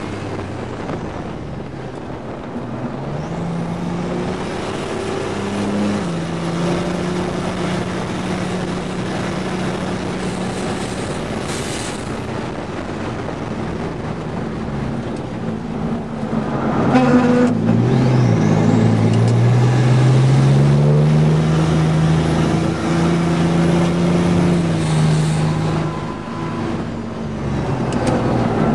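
GMC Syclone's turbocharged 4.3-litre V6 under hard driving, heard from inside the cab: the engine note climbs and drops with gear shifts and lifts, over steady road and wind noise. It gets louder past the halfway point as the truck accelerates harder.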